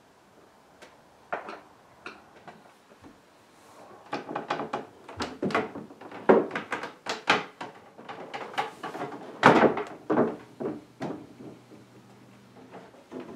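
Wooden knocks and thuds as a heavy antique drop-leaf dining table is tipped over from upside-down and set upright on its legs, the hinged leaves and wooden frame bumping. A few light clicks come first, then a run of knocks and thuds through the middle, two of them much louder than the rest.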